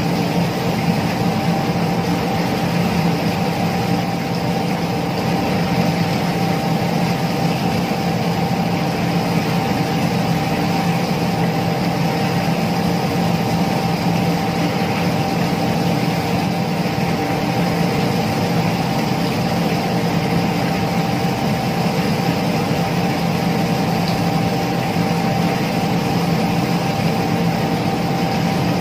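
Paint spray booth running steadily: a constant motor hum with a steady higher tone over a broad rushing noise, from the booth's extraction fan and the water running down its back wall.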